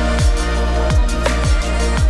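Electronic background music with a steady kick-drum beat and sustained synth tones.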